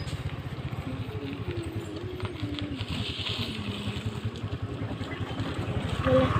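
A vehicle engine running steadily, with an even low pulsing.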